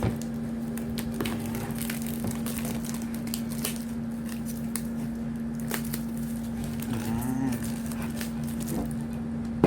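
Plastic shrink wrap on a sealed laptop box crinkling and crackling in short bursts as hands try to tear it open, over a steady low hum.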